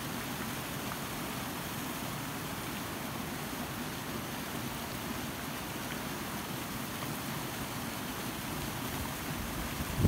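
Steady rush of a small waterfall cascading over rocks, an even, unbroken hiss of water.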